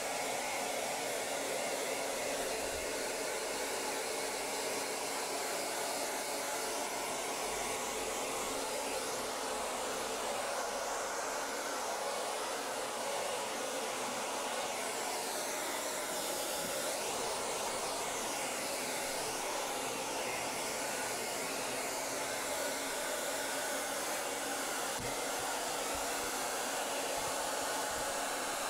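Handheld hair dryer blowing steadily while it is worked over a wet dog's coat, its tone shifting slightly as the nozzle moves.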